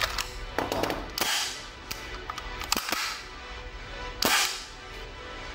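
Ingram MAC-10 submachine gun being handled, giving a handful of sharp metallic clicks and knocks spread out in time. The loudest sound is a short rasp about four seconds in.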